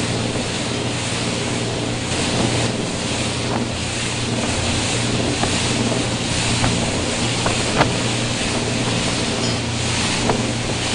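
Motorboat running fast through rough water: a steady low engine hum under the rush of waves and spray, with wind buffeting the microphone. A few sharp knocks cut through, the loudest a little under eight seconds in.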